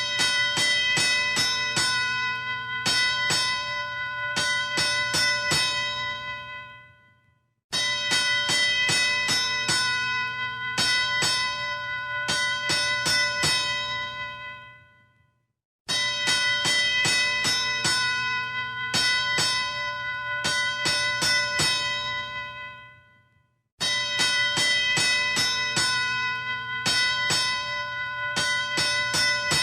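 Boxing ring bell struck rapidly over and over in a run of about six seconds, then left ringing until it dies away. The same run starts again about every eight seconds, four times in all.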